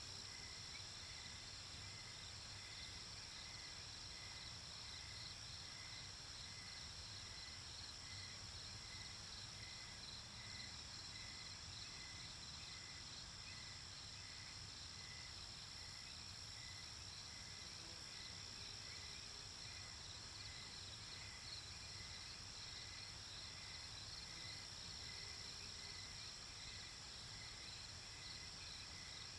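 Faint, steady night chorus of crickets and other insects: a continuous high trill with a faster pulsing layer beneath it, and a lower chirp repeating a little over once a second, over a soft low rumble.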